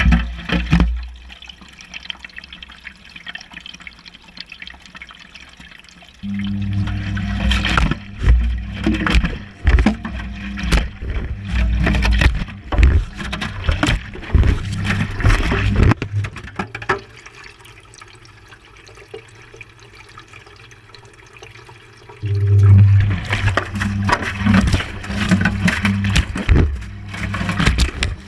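Whirlpool Indiana 1400 front-loading washing machine tumbling its wash, heard from inside the drum: water sloshing and knocks as the load and camera tumble, over a steady low motor hum. The drum turns in two spells, starting suddenly about six seconds in, pausing for a few seconds past the middle, and starting again near the end.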